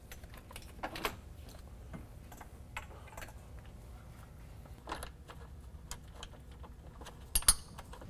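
Scattered light clicks and taps of hoses and metal parts being handled in a side-by-side's engine bay as a throttle body is fitted, with a sharp double click near the end and a low steady hum underneath.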